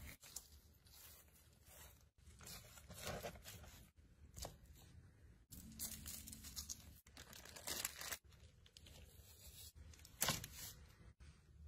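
Faint tearing and crinkling of food being handled, as cooked rib meat is pulled apart and wrapped. It comes in several short bursts that start and stop abruptly.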